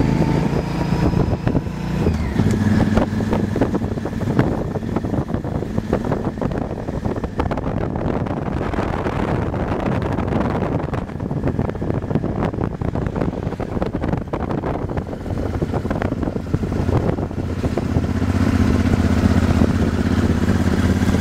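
Ducati motorcycle engine running steadily while riding, with wind rushing and buffeting on the microphone. The wind covers much of the engine note in the middle, and the engine comes through clearly again near the end.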